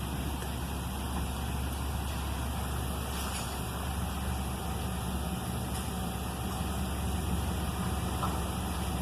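A steady low engine hum, as of a vehicle idling, with no change in level.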